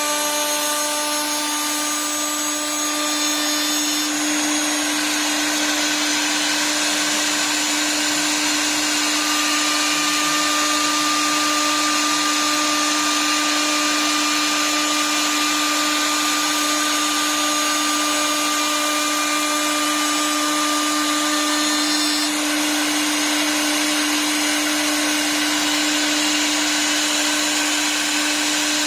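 Electric spindle of a 4-axis CNC wood lathe running under automatic program, its cutter milling a turning wood blank: a steady machine whine over dense cutting hiss, with small shifts in the cutting noise about four seconds in and again near twenty-two seconds.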